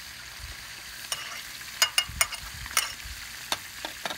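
A metal utensil clinks and taps against a china plate about eight times, the sharpest strikes around two seconds in, as salad is served. A steady hiss runs underneath.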